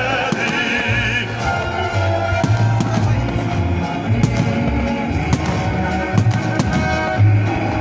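Aerial fireworks bursting, with repeated sharp bangs and crackles, over music that plays throughout.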